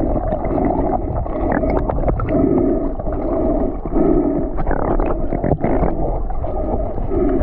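Muffled underwater sound picked up by an action camera in its waterproof housing: a continuous low rumble with a hum that swells and fades in repeated pulses, and scattered clicks.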